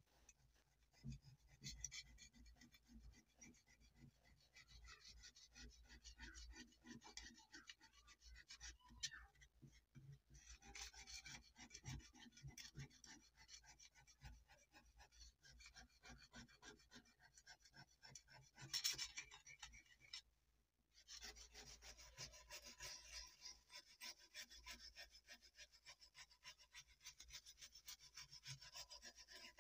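Faint scraping of rust off a steel knife blade with a flat metal scraper, in rapid repeated strokes. After a short pause about two-thirds through, the scraping turns denser and steadier, and near the end a steel wire brush scrubs the rusty blade.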